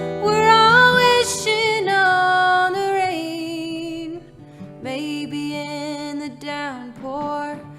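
A woman singing long, gliding notes over guitar in a live folk song performance.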